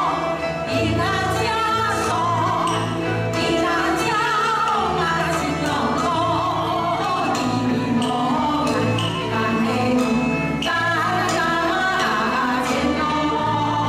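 Women singing a folk song with wavering vibrato over live band accompaniment: a steady bass line and regular drum strikes.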